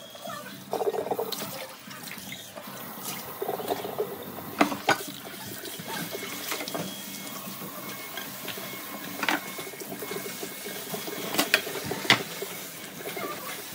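Kitchen tap running into a sink while dishes are washed by hand. Now and then there is a sharp knock or clink as a glass pot and pans are handled against the sink.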